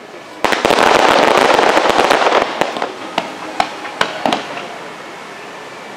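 Fireworks display: a sudden dense volley of crackling bangs starts about half a second in and runs for about two seconds, then single bangs follow at intervals and thin out.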